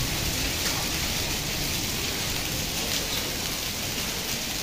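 Heavy rain falling steadily, an even hiss with no distinct hits or pauses.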